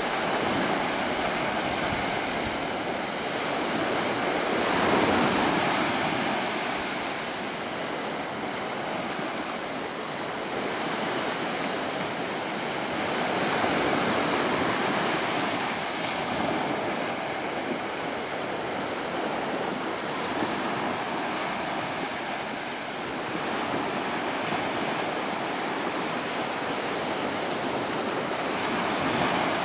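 Ocean surf washing on a beach, a steady rushing that swells and eases every several seconds as waves break.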